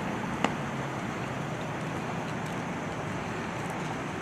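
Steady outdoor background noise with a low hum, like idling vehicles and distant traffic, with one short sharp click about half a second in.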